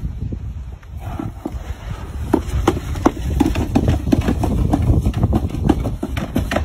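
Hard plastic sled dragged on a rope over wooden steps and grass, knocking and scraping in a rapid, irregular run of clatters as it bumps along, over a low rumble.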